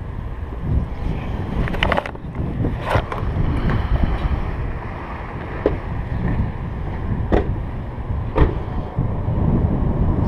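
Small go-kart engine running with a steady low rumble, wind buffeting the microphone, and a few sharp knocks or rattles spread through it.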